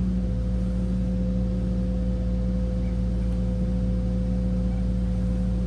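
Cat 308 excavator's diesel engine running at a steady speed, an even drone with a low hum and a steady higher tone, no change in pitch.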